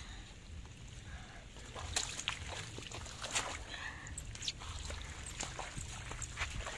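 Hands digging and scooping in waterlogged mud and shallow muddy water: wet squelches, sloshes and short splashes, the loudest about two and three and a half seconds in.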